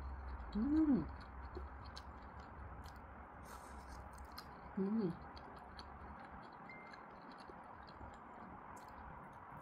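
Two short wordless vocal sounds from a person, a rising-and-falling hum about a second in and a shorter one around five seconds, over quiet room noise with faint scattered clicks.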